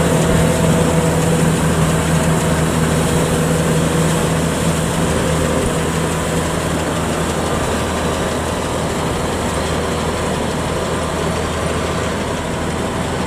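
Kubota DC-105X combine harvester's diesel engine running steadily in a flooded rice field: a continuous low engine hum with machinery noise, no breaks or revving.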